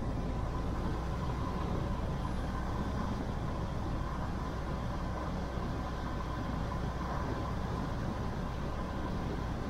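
Steady vehicle running noise: an even low rumble with a faint steady whine, unchanging throughout.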